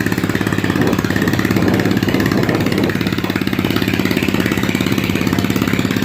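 Ferry's diesel engine running steadily with an even, rapid throb.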